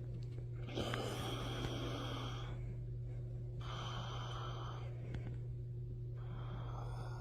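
A man snoring: three long, raspy breaths about every two and a half seconds, each with a faint whistle, the first the loudest. A steady low hum runs underneath.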